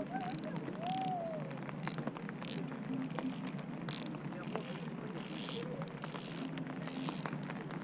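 Spinning reel being cranked to wind in a small hooked perch: the reel's gears give a fine ratcheting whir in short repeated runs as the handle is turned.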